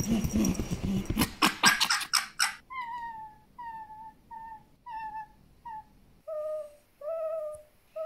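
Fennec fox vocalising: a quick, raspy, rattling chatter for the first two and a half seconds, then about five short high whimpers, each dropping a little in pitch. Near the end come longer, lower, wavering whines.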